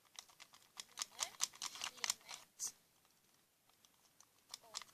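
Slime being squeezed and kneaded by hand, giving quick sticky clicks and pops. The clicks come in a dense run, stop for about two seconds, then start again near the end.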